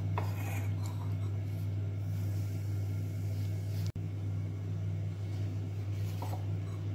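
A steady low hum throughout, with a few faint taps and scrapes of a metal spoon as melted butter is spooned over the rolled pastry in a glass dish. The sound cuts out for an instant about four seconds in.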